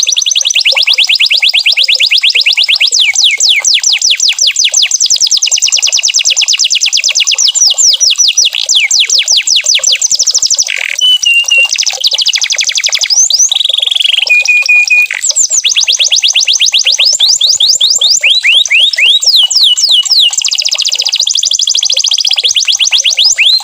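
Domestic canary singing continuously: long rolls of rapid, repeated falling whistled notes, broken a few times by short held tones.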